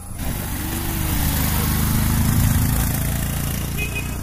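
Motorcycle engine of a Philippine tricycle (motorcycle with sidecar) running close by, growing louder to a peak about two seconds in and then easing off slightly.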